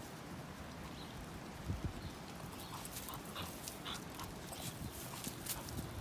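Two dogs play-wrestling on dirt and dry leaves: paws scuffling and leaves rustling in short bursts, with a couple of dull thuds about two seconds in and a few brief dog noises during the tussle.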